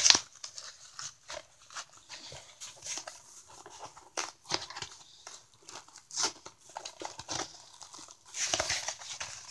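Irregular clicks, scrapes and rustles of a package being handled and worked open, with a longer rustle or tear near the end.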